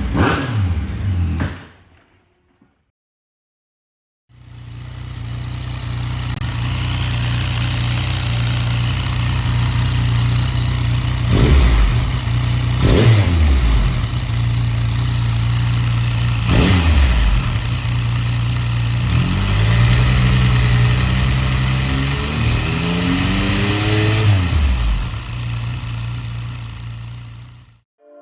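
Yamaha MT-09's three-cylinder engine idling, with three quick throttle blips and then one slower rev up and back down, stopping near the end. It carries the rattling engine noise that the owner puts down to a worn cam chain tensioner, for which Yamaha issues an updated part.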